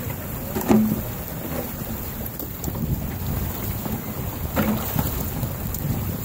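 Low rumble and grinding of broken river ice floes flowing downstream as an ice jam breaks loose, mixed with wind buffeting the microphone. Two brief knocks, one under a second in and one about four and a half seconds in, the first the loudest.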